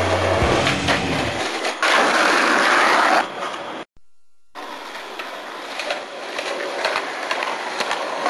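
Skateboard wheels rolling on concrete, a steady rough noise with scattered clicks. It is louder for about a second early on and cuts out for a moment about four seconds in before rolling on.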